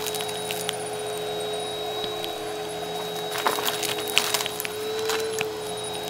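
Bissell Helix upright vacuum running on carpet with a steady motor whine, its brushroll picking up crumbs that click and rattle through the nozzle, most densely about three and a half to four and a half seconds in.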